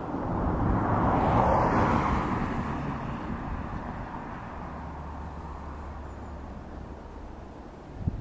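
A vehicle passing by, a broad rushing sound that swells about a second in and fades away over the next few seconds, with a sharp knock near the end.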